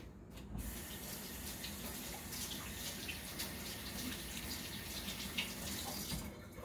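Kitchen sink tap running, with water splashing as hands are rinsed under it. It is turned on about half a second in and off shortly before the end.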